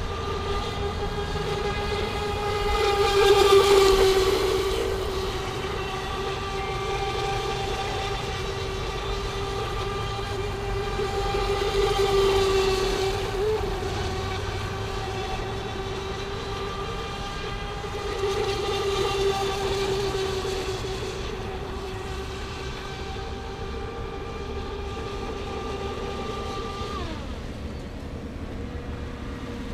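Electric motor of a Vector PRO RC speedboat whining at a steady high pitch, growing louder three times as the boat passes close, then dropping in pitch near the end as the throttle eases off.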